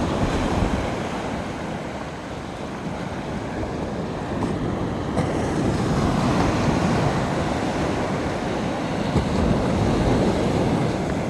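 Ocean surf from an incoming tide washing onto a sandy beach: a steady rushing that swells and eases, with some wind rumble on the phone's microphone.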